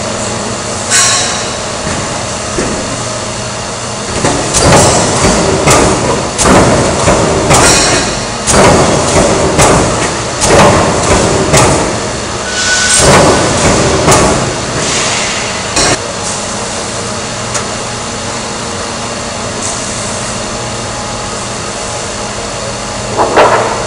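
Metal clanking and banging in a sheet-metal shop: a run of loud, irregular clanks about once a second over a steady machine hum. The clanks stop about two thirds of the way through, leaving the hum, and one more clank comes near the end.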